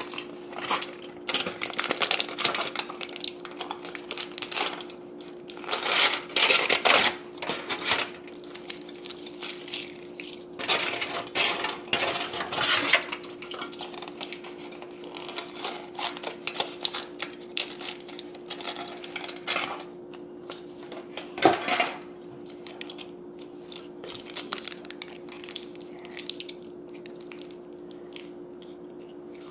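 Hands handling small materials: irregular rustling, clicking and tapping, with a sharper knock about two-thirds of the way in, over a steady hum.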